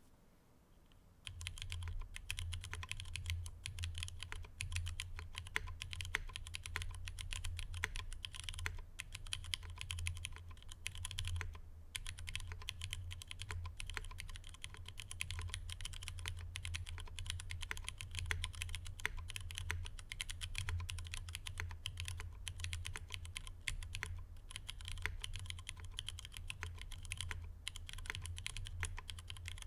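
Fast, continuous typing on a custom mechanical keyboard with stock Cherry MX2A switches in an aluminium plate, under GMK keycaps: a dense stream of key clicks and bottom-outs. It starts about a second and a half in and is broken by two brief pauses.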